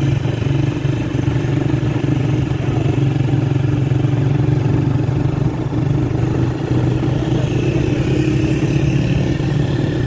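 Engine of a road vehicle running steadily at travelling speed, a constant hum over road noise.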